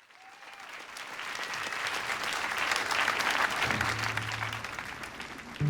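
Concert audience applauding, fading in from silence at the start and building, with a brief low held instrument note a little past halfway.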